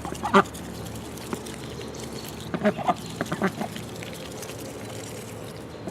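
Ducks quacking in short calls: one brief call just after the start, then a run of quick quacks about halfway through.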